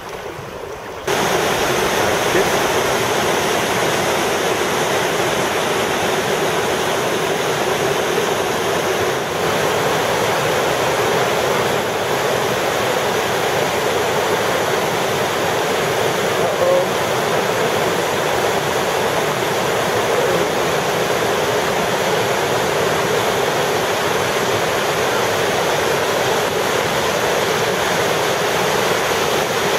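Loud, steady rushing of river whitewater rapids, cutting in abruptly about a second in.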